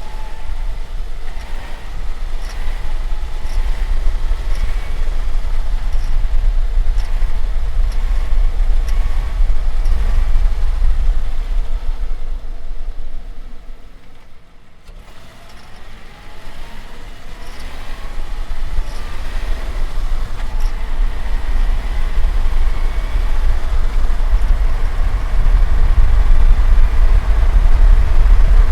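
Subaru car driving in gear, with engine and road rumble and engine pitch rising under acceleration. About halfway through the sound drops away briefly, then builds again as the car pulls harder.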